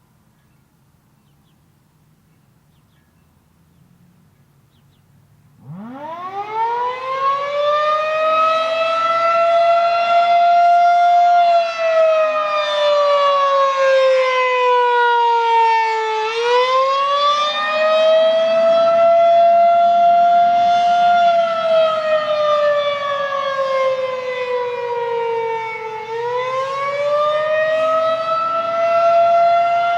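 Federal Signal 2001-SRN rotating electromechanical warning siren sounding the attack signal. About six seconds in it winds up from a low pitch to full tone, then wavers in a slow rise and fall, about ten seconds per cycle.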